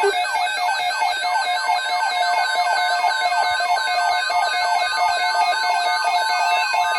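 Many electronic alarm tones sounding together: steady beeps, repeated falling sweeps about three times a second, and a fast high warble.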